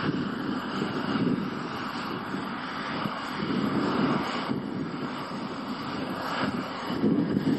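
A 300 hp Fendt 930 tractor's diesel engine running steadily under load as it pulls a plough through heavy clay, heard from close by.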